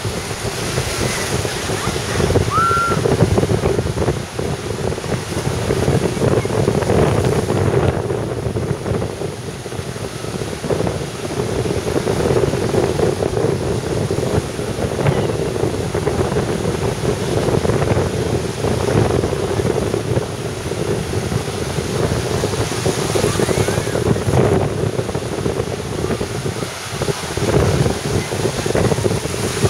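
Surf breaking and washing up on a sandy beach, rising and falling in level, with wind buffeting the microphone.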